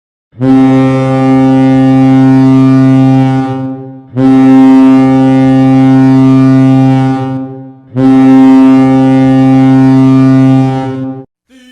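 Hockey arena goal horn sounding three long blasts of about three and a half seconds each, a low, steady, buzzy tone, signalling a goal scored.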